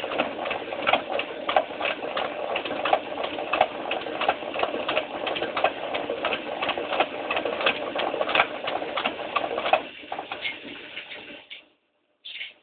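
Washing machine running with a strange noise: a rough rattling full of irregular clicks and knocks. It dies away about ten seconds in, and a brief high-pitched sound follows near the end.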